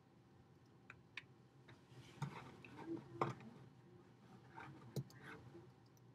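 Near-quiet room tone broken by faint clicks and rustles of movement, with sharper clicks about a second in, near three seconds and near five seconds.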